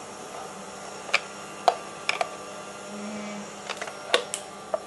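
Scattered light clicks and knocks of kitchen utensils and a bowl being handled, about seven over a few seconds.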